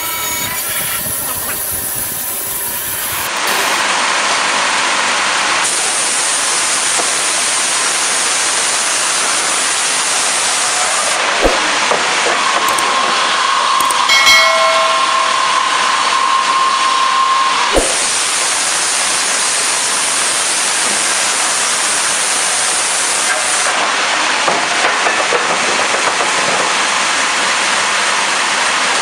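Band sawmill blade cutting lengthwise through a log: a steady hissing rush that gets louder about three seconds in, with a held tone near the middle and a couple of sharp knocks.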